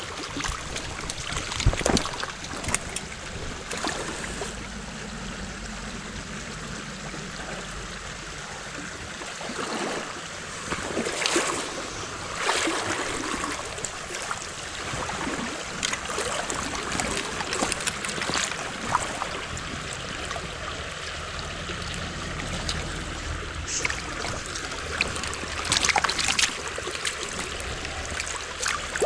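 Fast-flowing water of a small spring creek rushing steadily, with louder splashing three times.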